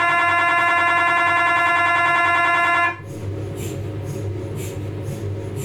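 Philips 1.5 T MRI scanner's gradient coils buzzing loudly and steadily at one pitch during the planning/shim scan, stopping abruptly about three seconds in as the sequence ends. Then the idle scanner's low hum remains, with faint ticks.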